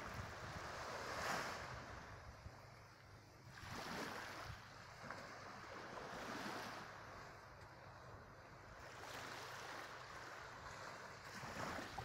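Small, gentle waves washing up on a sandy shore, one soft swash of surf every two to three seconds.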